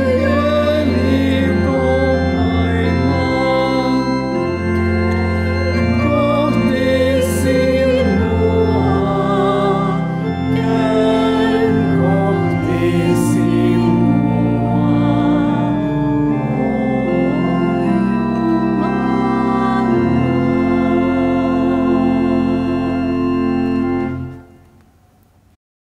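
Pipe organ playing a hymn tune in full, sustained chords, the harmony shifting every second or so. About 24 seconds in the final chord is released and dies away in the church's echo.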